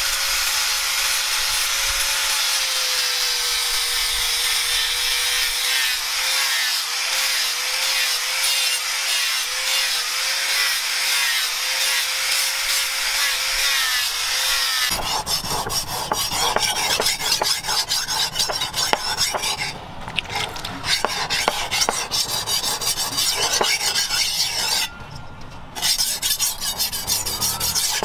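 An angle grinder with an abrasive disc runs against the steel of a leaf-spring cleaver blade, grinding with a steady whine that wavers slightly in pitch. About halfway through this gives way to the blade being rubbed back and forth on a wet whetstone to sharpen the edge: rasping strokes that stop briefly twice.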